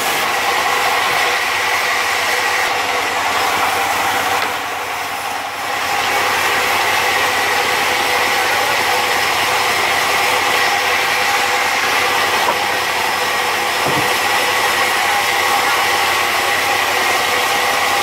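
Large band saw mill running, a steady high whine and hum over a dense mechanical noise as logs are fed to the blade. The level dips briefly about four and a half seconds in.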